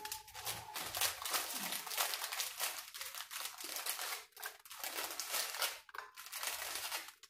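Plastic wrapper of a packet of ladyfinger biscuits crinkling and rustling as biscuits are pulled out of it: a dense, continuous run of crackles.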